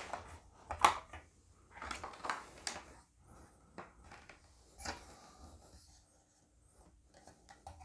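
Metal legs of an Abenaki bamboo folding camping table being swung up and locked into place. A sharp click comes about a second in, then metal rubs and scrapes against the bamboo top, with another click near five seconds.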